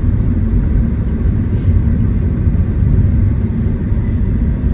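Steady low rumble of tyre and road noise heard inside the cabin of a moving Tesla electric car.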